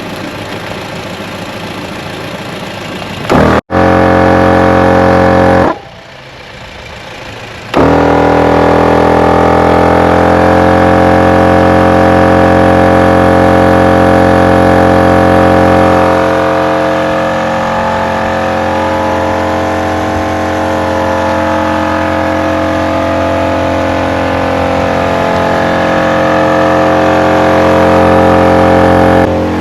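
Off-road air compressor running while it airs up four tyres through a manifold to a set 35 psi. It starts about three seconds in, stops briefly, then restarts and runs steadily with a pitched hum, its pitch sagging slightly as it takes the load, until it cuts off near the end.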